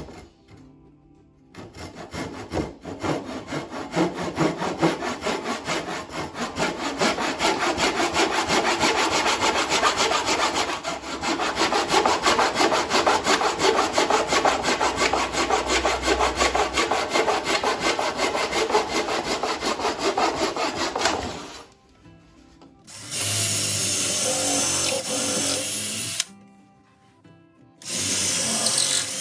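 Wood being cut with a hand saw in quick, even strokes for about twenty seconds. Near the end, two short runs of a power drill.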